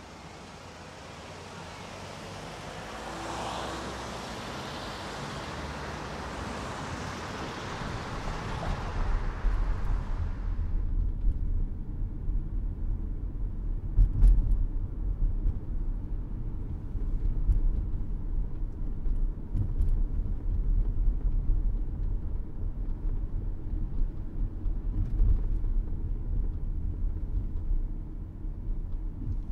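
Car being driven on a city road: a steady low rumble of engine and road noise. A rushing hiss builds over the first ten seconds and stops abruptly. A few knocks come through, the loudest about halfway.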